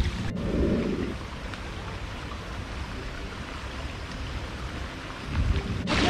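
Steady rushing noise of falling and running rainwater, with a low rumble underneath.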